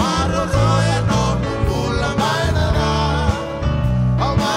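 Live worship band playing a gospel song: a man singing lead into a microphone over electric bass guitar, keyboard and drums.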